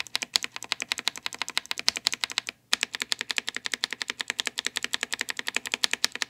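Blue mechanical keyboard switches lubed with Vaseline, pressed rapidly and steadily at about ten strokes a second, with one short pause about two and a half seconds in. The switches' crackle stays very faint.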